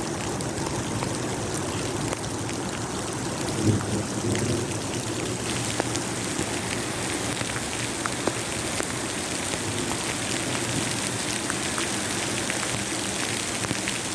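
Steady rain, with scattered drops ticking sharply on a nearby surface. A short, louder low thud comes about four seconds in.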